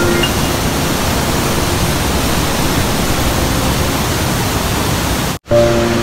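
Loud, steady rushing of the Rhine Falls' churning white water, an even wash of noise. Background music stops just after the start and comes back after a brief dropout near the end.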